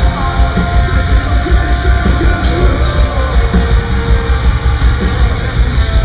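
A heavy metal band playing live and loud: distorted electric guitars, bass and drums, with a lead guitar line over the rhythm, heard from among the concert crowd.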